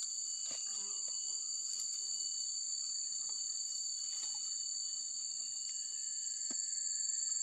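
Steady, continuous high-pitched chorus of insects in a swamp, holding two unbroken high notes, with a few faint ticks.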